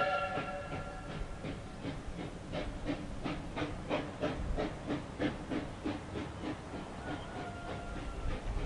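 Steam whistle of a South African Railways Class 19D locomotive dying away about a second in, followed by the locomotive's exhaust chuffing in a steady beat of about three a second as it works away from the station under load.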